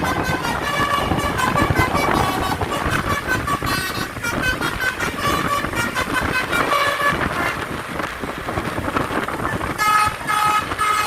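A bus's telolet 'basuri' multi-tone horn playing a rapid tune of short notes that jump in pitch, over engine rumble. The notes pause briefly about three-quarters of the way in, then start again.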